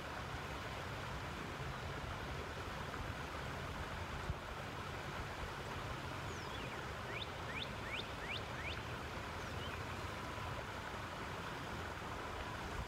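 Steady rush of a flowing creek with wind rumbling on the microphone. A bird gives a quick run of four or five short rising chirps about seven to nine seconds in.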